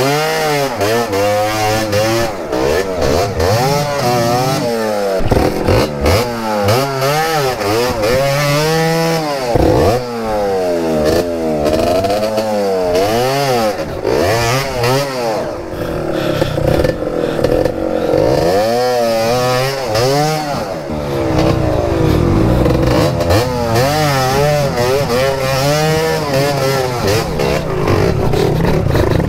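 125 cc two-stroke trail motorcycle engine revving up and down again and again as the throttle is worked over a slippery muddy trail.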